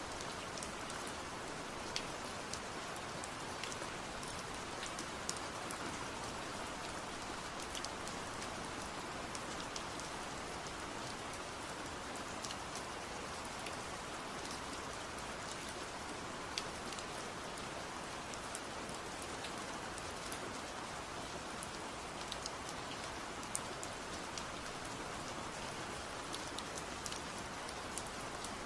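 Steady rainfall, an even hiss with scattered sharp ticks of individual drops hitting a surface.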